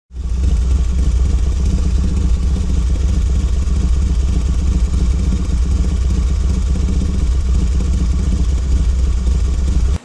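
A motorcycle engine running steadily, deep and low, with no rise or fall in speed.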